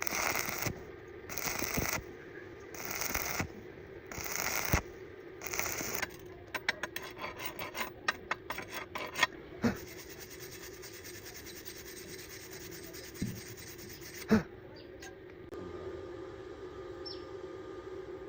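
Five scraping strokes worked by hand over metal, about one every second and a bit, then a quick run of light clicks and a few sharp knocks; a steady hum runs underneath.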